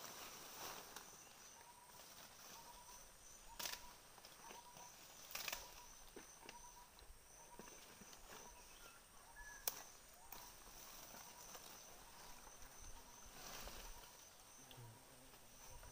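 Quiet forest ambience: a faint animal call, an insect or bird, repeating steadily under a thin high hum, with three sharp snaps or rustles, the loudest near the middle.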